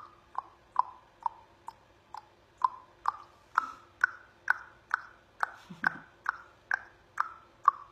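A steady run of short, sharp clicks, a little over two a second, with a brief low hum about six seconds in.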